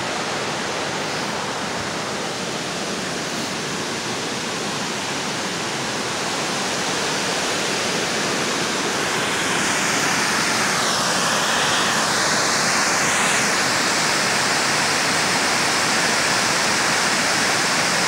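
Water rushing over a dam spillway and down a small rocky waterfall below it, running high after recent rains: a steady, even rush of falling water. It grows a little louder about seven seconds in.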